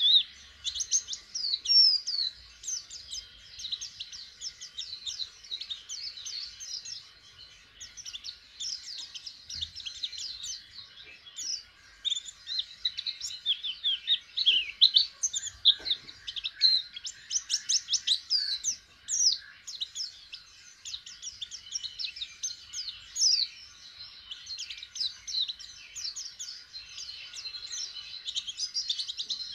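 A caged white-eye (pleci) singing a fast, unbroken run of high, quick twittering chirps. It is a bird just beginning to sing.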